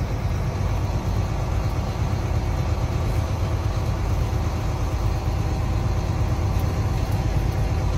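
Semi truck's diesel engine running steadily under way, with road noise, heard from inside the cab as a constant low drone.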